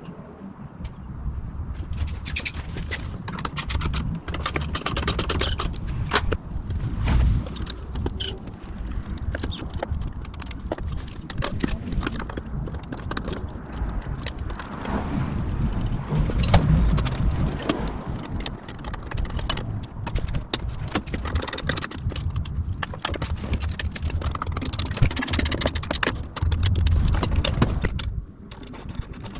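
Hand tools and metal parts being handled while fitting accessory racks to a motorcycle: repeated clicks, clanks and scrapes with occasional dull thumps.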